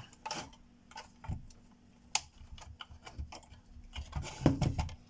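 Plastic spudger prying at the plastic clips of a graphics card's cooler shroud: irregular small clicks and scrapes of plastic on plastic, with a louder cluster of clicks about four and a half seconds in.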